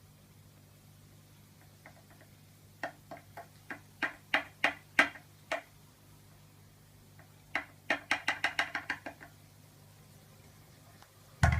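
Sharp metal clicks and knocks from a stunt scooter's parts being worked on while it is tightened and checked for rattle. A run of about nine spaced knocks grows louder, then a quick burst of clicks follows a couple of seconds later.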